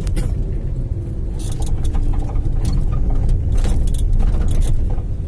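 Steady low engine and road rumble heard from inside a moving vehicle's cabin, with scattered clicks and rattles.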